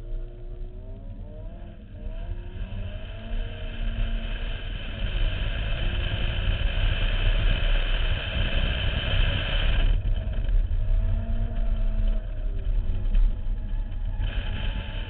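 A 2005 MINI Cooper S's supercharged four-cylinder engine driven hard on an autocross course, revs climbing and falling with throttle and gear changes. It builds over the first few seconds, eases off about ten seconds in, and picks up again near the end.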